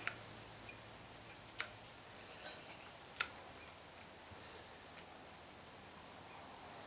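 A handful of faint, sharp metal clicks about a second and a half apart, the third the loudest: a hand-forged steel screw key knocking against the padlock as it is fitted into the lock.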